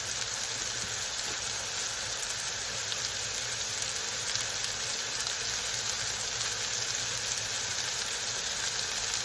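Beef burger patties sizzling on a hot grill, a steady hiss.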